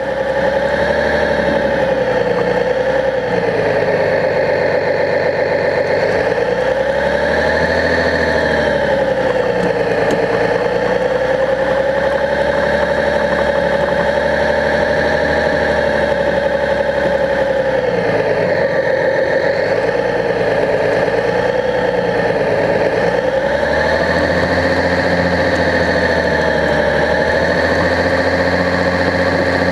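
Remote-control model bulldozer running with a steady engine-like drone. Its pitch rises and falls smoothly every few seconds and is lowest about 19 seconds in.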